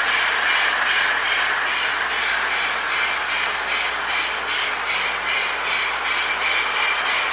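Lionel O-gauge 8904 model steam locomotive running on track, its tender's repaired electronic Sound of Steam board giving a steady, rhythmic hissing chuff over the motor and wheel noise.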